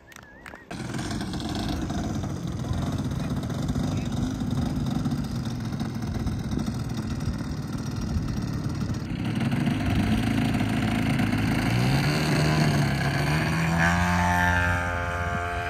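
Engine of a large radio-controlled aerobatic model airplane running at high power with a propeller, its pitch wavering with throttle. Near the end the pitch drops as the plane passes by.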